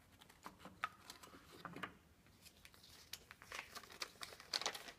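A small folded paper note being taken out and unfolded by hand: soft crinkling rustles and light ticks and clicks, which grow busier in the second half.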